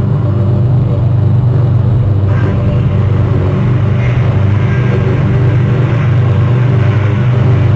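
Loud, steady low hum of several even tones, like a motor running, with fainter higher sounds added from about two seconds in.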